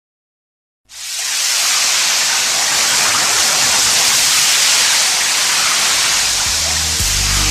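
Rain sound effect: a loud, even, steady hiss that starts abruptly about a second in after silence. Near the end, the low bass notes of a music track come in under it.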